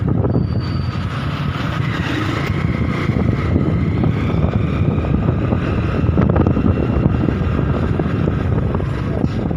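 Wind buffeting the microphone on a moving motorcycle, with the bike's engine running underneath as a steady, rough rumble.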